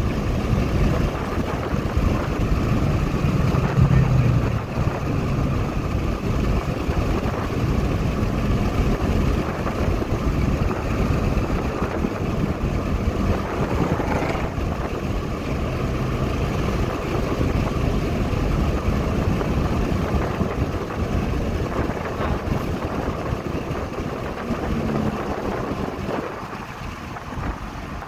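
Steady engine and road noise heard from inside a car cruising at highway speed. A low engine hum swells briefly about four seconds in, and the noise eases off a little near the end.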